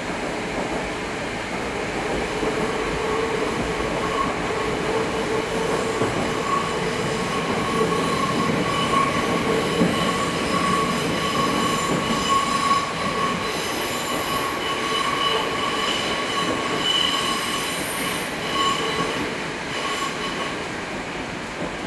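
Inside a running 81-765 "Moskva" metro car: the steady rumble of wheels on the track, with high whining tones over it. It gets a little quieter near the end.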